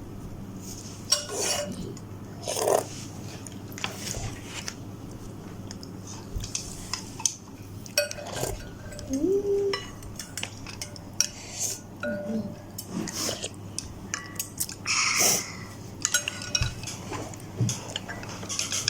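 Cutlery clinking and tapping against a bowl in irregular short clicks, as noodles are eaten from it.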